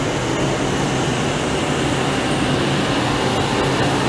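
Engines of WWII military vehicles, jeeps and a half-track, running steadily as they drive past close by.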